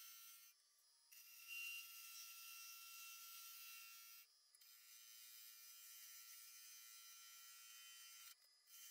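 Faint hiss of a gouge cutting spinning wood on a lathe, shavings peeling off, with a thin steady whine; the cutting drops out briefly three times as the tool is lifted between passes.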